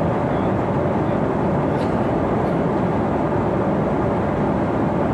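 Steady cabin noise inside a Boeing 777-300 at cruising altitude: an even, unchanging drone of engines and rushing air.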